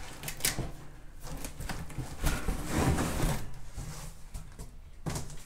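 Cardboard box being handled: flaps rustling and scraping, with a few light knocks.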